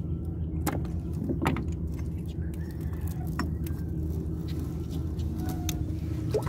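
A boat engine running steadily with a low, even hum, with a few short clicks of the net and fish being handled.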